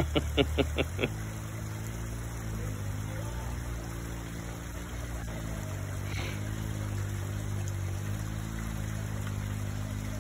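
Off-road vehicle's engine running at low revs, its pitch rising and falling slightly with the throttle. A short burst of laughter right at the start.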